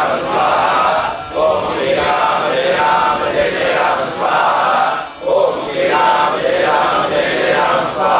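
A group of men chanting Vedic mantras together in a steady recitation, in phrases of a second or two with brief breaths between.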